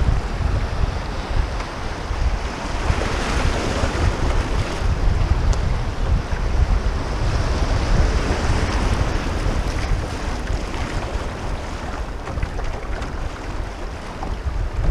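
Fast river current rushing and splashing around a canoe running through riffles, swelling louder a few seconds in and again midway, with wind buffeting the microphone as a low rumble.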